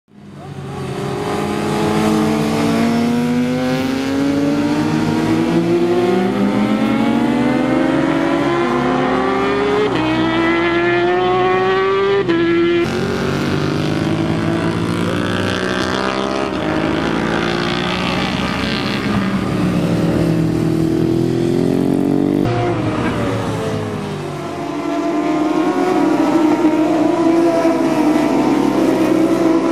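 Several superbike racing motorcycles accelerating hard up through the gears. Their engine notes climb and drop sharply at each upshift, the strands overlapping as the bikes pass one another. The sound fades in over the first second.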